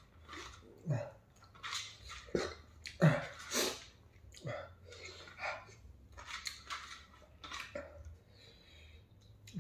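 A person eating rice with his fingers: irregular chewing and smacking mouth sounds, with fingers working rice on a steel plate.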